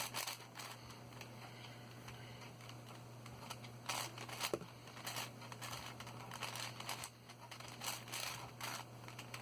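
Faint, irregular plastic clicks and rattles of a 6x6 Rubik's cube being handled and its layers turned.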